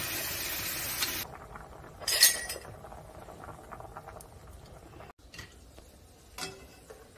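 Kitchen sounds: a steady rush of running water that cuts off suddenly about a second in, then dishes clinking, with one sharp loud clink about two seconds in, a few light ticks, and another clink near the end.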